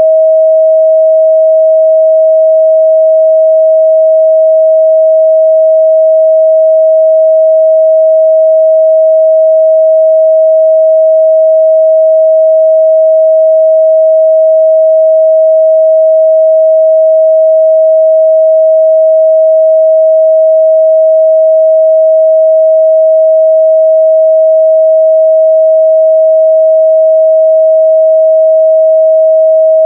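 Steady, loud 637 Hz sine-wave test tone, a single pure mid-range pitch held without change.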